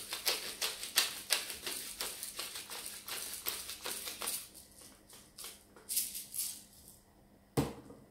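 Hand-twisted pepper mill grinding black peppercorns: a quick run of dry crunching clicks, several a second, for about four and a half seconds, then a few more turns a second later. Near the end, one sharp knock as the mill is set down on the countertop.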